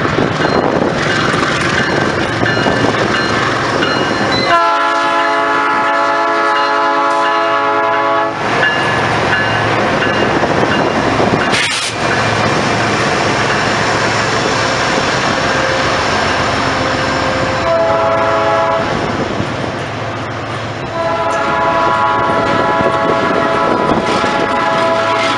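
Diesel-electric freight locomotives passing close by at slow speed, engines and wheels rumbling steadily. The lead unit's multi-chime air horn sounds three times: a long blast, a short one and another long one.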